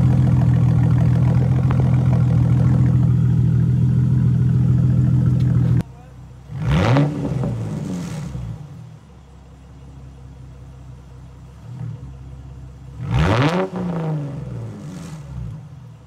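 2010 Ford Mustang's 4.0 L V6 running through a muffler-delete exhaust with added straight pipes: a loud steady engine sound close to the tailpipe, which drops off sharply about six seconds in to a quieter idle. Two quick revs rise and fall, about seven and thirteen seconds in.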